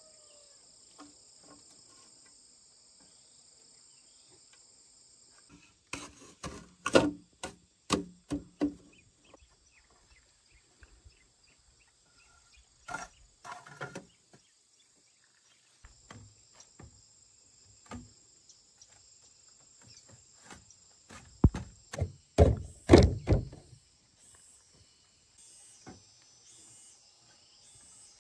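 Hollow bamboo poles knocking and clattering as they are handled and fitted onto a bamboo frame, in a few clusters of sharp knocks, the loudest a little before the end. A steady high insect drone runs underneath.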